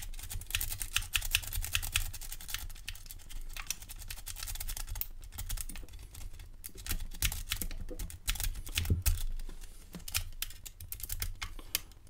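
Dimple rake being worked in and out of the keyway of a Godrej DuraLock 9-pin dimple discus padlock under tension: a rapid, uneven stream of small metallic clicks and scrapes as the rake rattles over the pins.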